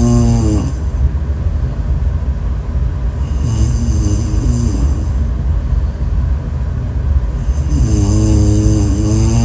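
A person snoring loudly in a slow rhythm, a drawn-out pitched snore about every four seconds, over a steady low rumble.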